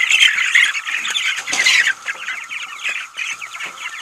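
A flock of young pastured chickens peeping and squawking in a dense, continuous chorus as they crowd a feeder, loudest near the start and again about halfway through.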